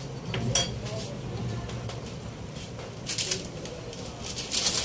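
Beef-rib broth with onions bubbling at a rolling boil in a pot, with a scatter of sharp popping clicks over a steady low hum.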